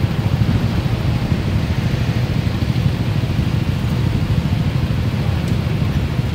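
Motorcycle and car engines idling in a traffic jam: a steady low engine rumble.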